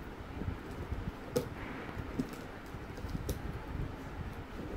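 Scissors cutting the plastic packing tape on a cardboard box: irregular clicks and scrapes, the sharpest about a second and a half in and again a little after three seconds.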